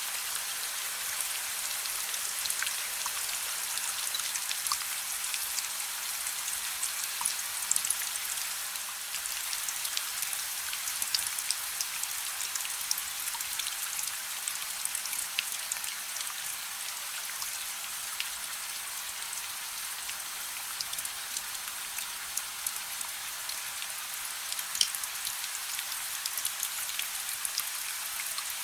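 Steady rain hissing, with scattered sharp crackles and pops of a wood fire burning in a fireplace throughout.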